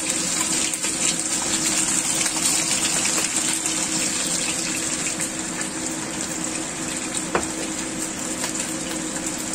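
Chicken wings sizzling in hot oil in a nonstick frying pan, a steady crackling hiss, with a spatula turning them and one sharp tap about seven seconds in. A steady low hum runs underneath.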